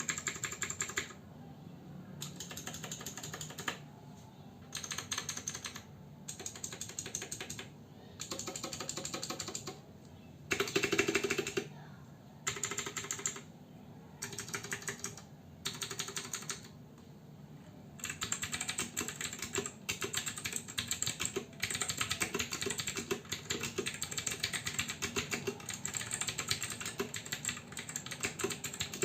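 Royal Kludge RK71 mechanical keyboard with clicky blue switches being typed on: short bursts of rapid keystrokes with brief pauses between them, then continuous fast typing from about eighteen seconds in.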